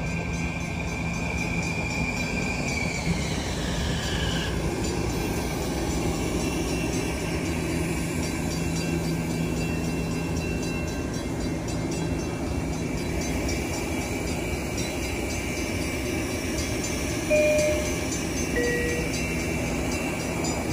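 Long Island Rail Road M9 electric train pulling in. Its traction motors whine, falling in pitch as it brakes to a stop, and it then sits humming. Near the end a two-note door chime sounds, high then lower, as the doors open.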